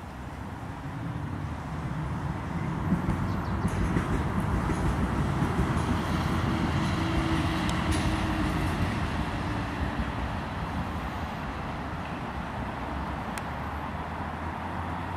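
Rumbling noise of a passing motor vehicle, building over the first few seconds and slowly fading.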